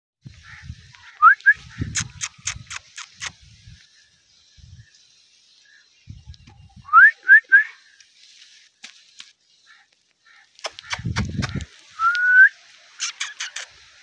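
Indian ringneck parakeet giving short rising whistles in quick groups of two or three, with one longer rising whistle near the end, mixed with rapid runs of sharp clicks. Low rumbling thumps sit underneath at the start and about eleven seconds in.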